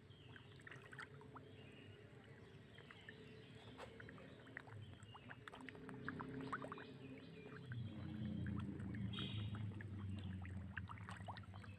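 Water splashing and lapping, with many small sharp clicks. A low rumble grows louder from about eight seconds in.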